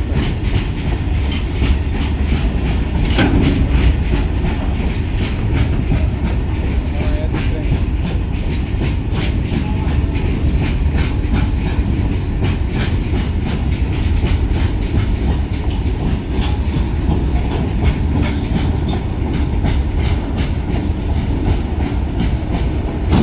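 Indian goods train's open-top freight wagons rolling past at close range: a steady, loud low rumble with repeated clickety-clack knocks of wheels over rail joints.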